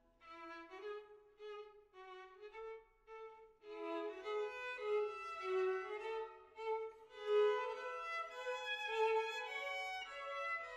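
Background music: a violin melody, with short, separate notes at first and fuller, louder playing from about four seconds in.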